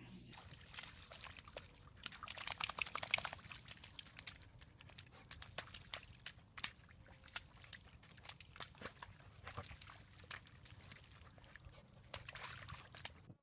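A dog wallowing and rolling in a muddy puddle: wet sloshing and splashing in many short bursts, thickest a couple of seconds in.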